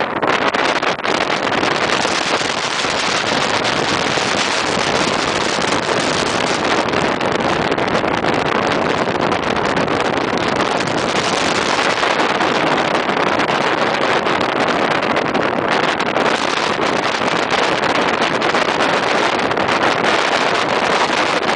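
Very strong wind blasting across the microphone: a loud, continuous rushing noise that swells and eases slightly but never stops.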